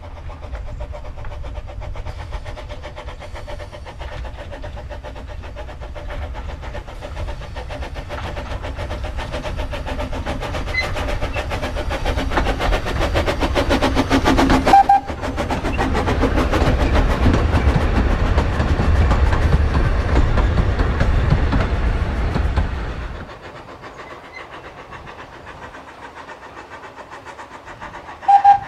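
New-build narrow-gauge steam locomotive Corris Railway No 10, a Falcon-type saddle tank, working a passenger train: its exhaust beats and running gear grow louder as it approaches and passes, with a short whistle blast about halfway through. After an abrupt drop it is heard quieter and further off, and gives a second short whistle blast near the end.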